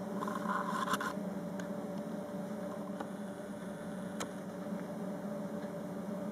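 Steady low electrical hum with a few short, sharp clicks of plastic gamepad buttons being pressed, about one, three and four seconds in.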